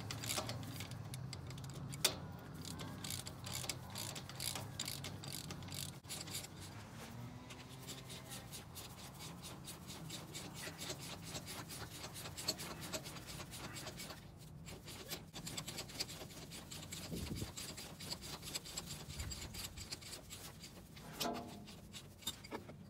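A socket ratchet clicking in runs of fast, fine clicks, with metal rubbing and scraping, as the adjusting nuts on a Gravely garden tractor's clutch are turned to set the clutch gap. The clicking thins out after the first two thirds.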